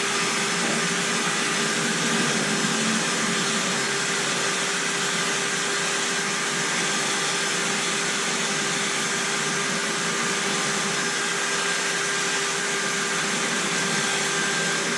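Electric power sander running at a steady speed against a pickup truck's steel frame, an even motor whine with grinding noise.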